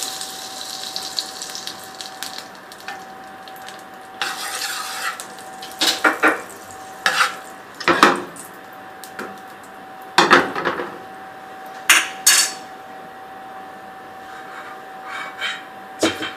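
Butter and oil sizzling in a frying pan, with a high hiss that fades in the first second or two and returns briefly. From about six seconds in come several sharp clinks and knocks of utensils against the pan and bowl. A faint steady hum runs underneath.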